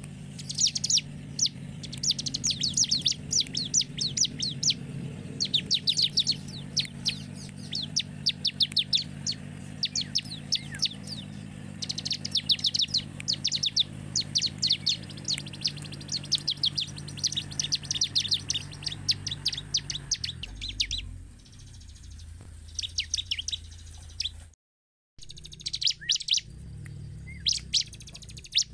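Ciblek (bar-winged prinia) singing: phrase after phrase of rapid, sharp, high chirps, the song thinning out about two-thirds of the way in. A low steady hum runs underneath, and the sound cuts out completely for a split second near the end.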